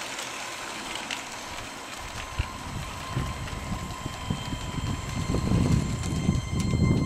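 Custom LEGO model trains running on plastic track, their motors and wheels making a steady mechanical rattle that grows louder from about two seconds in as the trains draw nearer.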